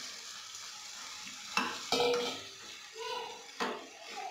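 Steel ladle stirring fried chicken pieces into onions and peppers in a non-stick kadai, over a steady low sizzle. Several sharp clinks of metal on the pan, the loudest about one and a half and two seconds in and again near the end.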